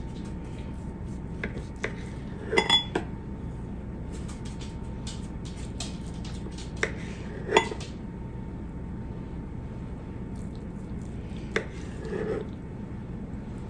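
A kitchen knife and slices of dough knocking and clinking against a ceramic pie plate as pinwheels are cut and set in it. There are scattered sharp clicks, the loudest a small clatter about two and a half seconds in and another past seven seconds, over a steady low hum.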